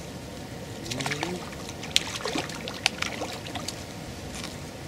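Water splashing and sloshing as a hooked crucian carp thrashes at the surface while it is drawn in on a pole rod, with two sharp slaps about two and three seconds in.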